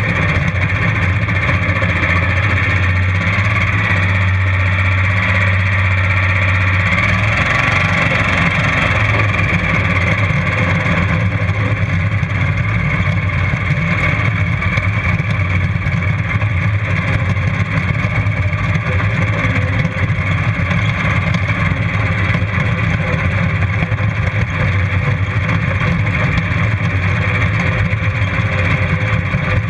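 Racing ride-on lawnmower engine running steadily and loudly throughout, with no marked revving.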